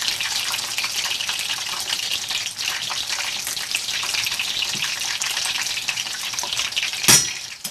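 Battered chicken pieces frying in hot oil: a steady crackling sizzle full of small pops, with one sharper clack about seven seconds in.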